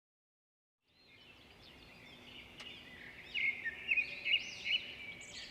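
Birds chirping, several calling over one another, fading in after about a second of silence and growing louder.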